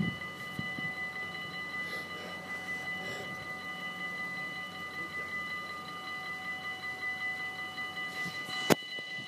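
Dutch level-crossing warning bells ringing steadily while the barriers are down, a ringing tone made of several held pitches. A single sharp click comes near the end.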